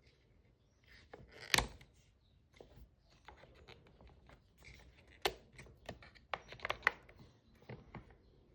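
Handling noises from a vintage JAC MAC-10 gas airsoft gun: sharp clicks and clacks, one loud about one and a half seconds in, another about five seconds in and a quick run of several near seven seconds, with softer rubbing and tapping between.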